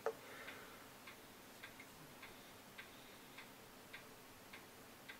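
Faint, even ticking, a little under two ticks a second, with a sharper click at the very start.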